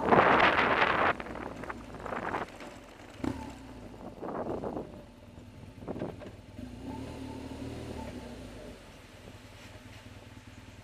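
BMW R1200GS flat-twin motorcycle engine running at low speed, with wind rushing over the camera microphone. The wind is loud for about the first second, then drops away, leaving the low engine hum and a few short gusts.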